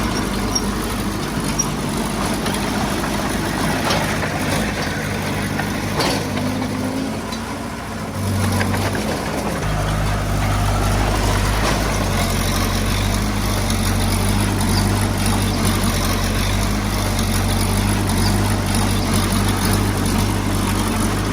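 Heavy-equipment diesel engine running steadily at a low pitch. It eases off briefly about seven seconds in, then picks back up louder from about ten seconds and holds.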